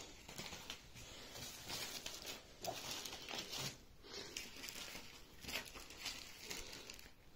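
Faint, irregular rustling and crinkling of a printed sheet in a plastic sleeve being handled.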